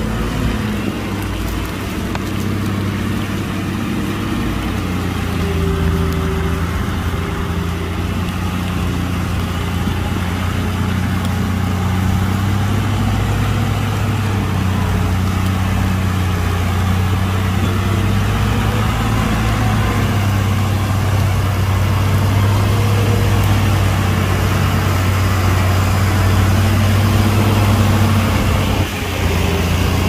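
Heavy diesel engine of earthmoving machinery running steadily with a deep drone, its pitch shifting slightly as it works, with a brief drop in level near the end.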